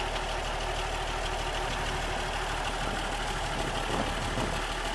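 Autocar Constructor dump truck's diesel engine idling steadily through its newly fitted muffler and vertical exhaust stack.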